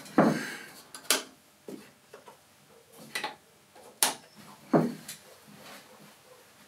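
OO gauge Bachmann Class 20 model locomotive running through the points, its wheels clicking over the rail joints and frogs in a handful of sharp clicks at uneven intervals.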